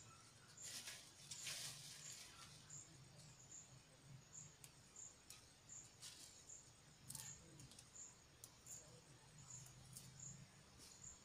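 Faint, evenly repeated high chirps of an insect, about one every three-quarters of a second, with a few soft rustles and clicks from hands working snails in a plastic bag, over a faint low hum.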